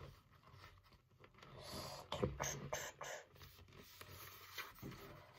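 Faint handling noise: a thick round sticker being turned and rubbed against a helmet shell, with light scraping and a few soft taps about two seconds in.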